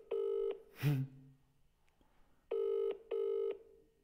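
British double-ring ringback tone from a mobile phone on loudspeaker: two short pulses, a gap, then two more, as an outgoing call rings unanswered. A short sharp noise about a second in is briefly louder than the ringing.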